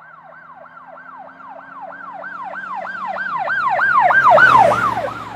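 Emergency vehicle siren in a fast yelp, rising and falling about four times a second, growing louder to a peak about four seconds in and then fading.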